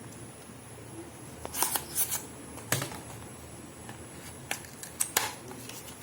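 Packaging of a phone bumper case being handled and opened: a handful of short clicks and crackles at irregular intervals.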